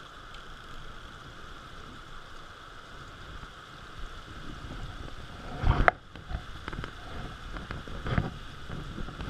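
Steady rush of water pouring over a weir dam. A hooked trout splashes at the surface about six seconds in and again near the end.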